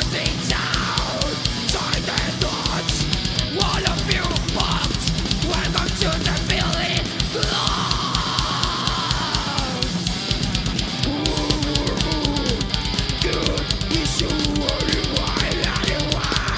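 Groove metal band playing live: fast, steady bass-drum strokes under distorted electric guitars, with sweeping high bends over the top.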